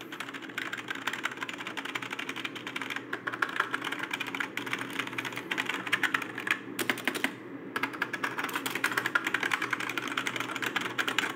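Fast typing on an Imperion Sledgehammer 7 (KG-S07C) gaming keyboard with floating keycaps: a dense, continuous stream of key clicks, with a short break about seven seconds in.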